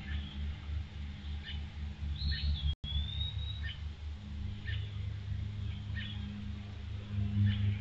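Birds chirping, short calls about once a second, with one longer whistled call about two seconds in, over a low pulsing hum. The sound cuts out completely for an instant near the three-second mark.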